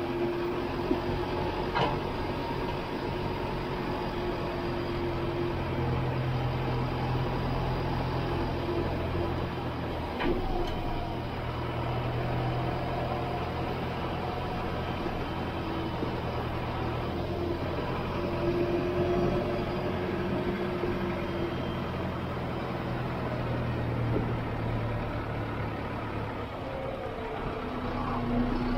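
Valtra C120 tractor's diesel engine running under load as it tows a slurry tanker at low speed. Its pitch rises and falls slightly, and there is an occasional knock.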